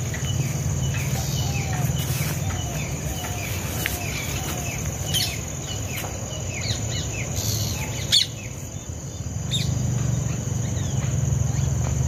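Outdoor field ambience: birds giving short chirps over and over over a steady high insect drone, with a low rumble underneath. A single sharp click comes a little after eight seconds in.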